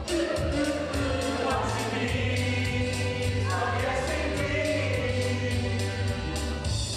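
Music with several voices singing together over a steady beat and bass, with some long held notes in the middle.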